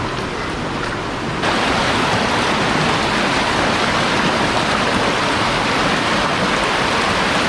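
River water rushing over rocks, a steady rush that gets abruptly louder about a second and a half in.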